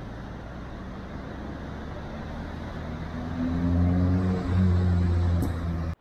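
A motor vehicle engine running with a low hum, getting steadily louder as it comes closer, over the steady wash of surf. It cuts off suddenly just before the end.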